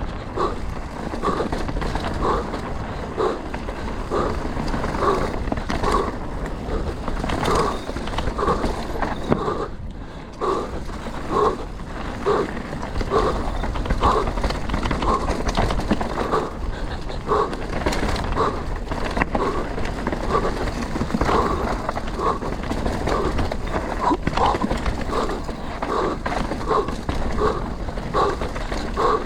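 Canyon Spectral 125 mountain bike rolling over a rough trail: tyres on dirt and rock, rattling of the bike, with a pitched pulse repeating about twice a second throughout.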